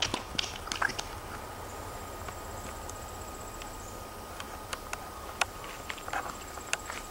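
A young Alaskan Malamute nosing and mouthing a plastic toy ball across grass: scattered light clicks and knocks, a few in quick clusters near the start and again near the end. A faint steady high tone runs under it.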